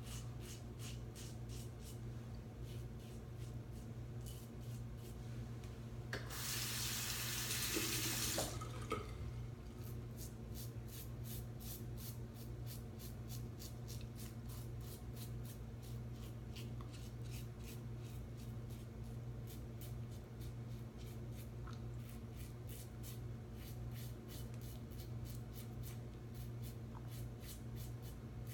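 A RazoRock SLOC double-edge safety razor scrapes across stubble in many short, quick strokes. A tap runs briefly for about two seconds, a quarter of the way in. A steady low hum lies underneath.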